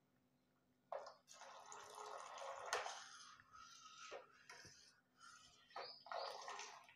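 Custard powder mixed in water trickling faintly in a thin stream into hot milk in a steel saucepan, with a few light clinks of a steel ladle against the pan.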